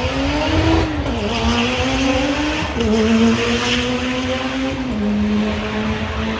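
Race car engine under hard acceleration, its pitch climbing in each gear and dropping sharply at three upshifts, over a steady hiss.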